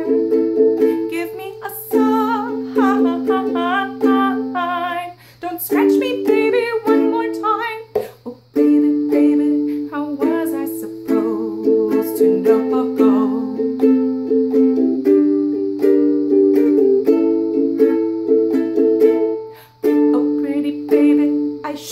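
Kohala ukulele strumming chords in a steady rhythm, with a woman's voice singing over it in places.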